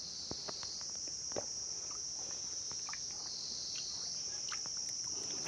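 Insects making a steady, shrill, high-pitched drone that shifts slightly in pitch now and then.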